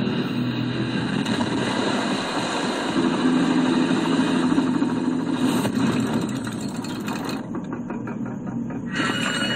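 Helicopter engine and rotor running steadily, with a fast, even rotor chop in the last second or so.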